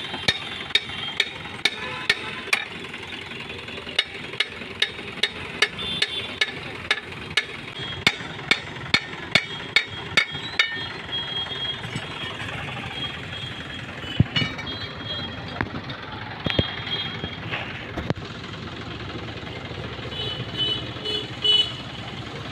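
Rapid hammer blows on a seized rear brake drum of a Mahindra Scorpio, about two ringing metal strikes a second for some ten seconds as the drum is knocked loose. A few separate knocks follow once it is off.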